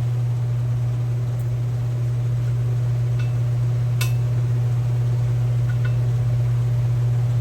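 A steady low hum, with one sharp click about four seconds in and a couple of faint ticks.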